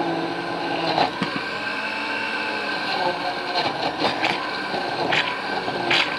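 Countertop blender running at full speed, pureeing a liquid salsa and chopping up a whole crispy tortilla dropped into it: a steady motor whir over churning liquid, with a few sharp knocks. The sound cuts off suddenly near the end.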